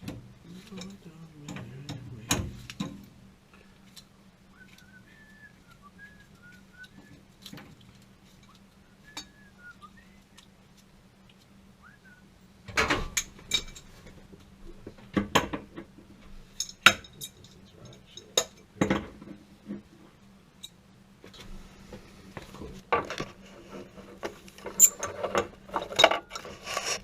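Metal tools and plumbing fittings clinking and clanking as pipework is handled, with scattered knocks at first, a run of sharp clanks midway and busier clatter near the end.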